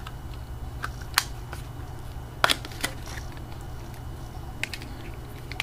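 Small plastic clicks and snaps from a Nokia Surge phone's back cover being unclipped and its battery handled: a scatter of short sharp clicks, the loudest about two and a half seconds in.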